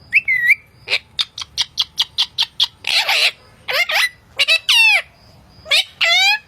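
Indian ringneck parakeet vocalizing: a sharp call, then a rapid run of short clicks, about five a second, a brief hissing burst about three seconds in, and several rising, speech-like calls near the end.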